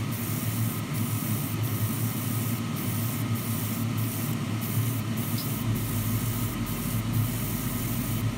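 Airbrush spraying thin black paint at low pressure: a steady hiss, broken several times by brief dips as the trigger is eased between passes, over a steady low hum.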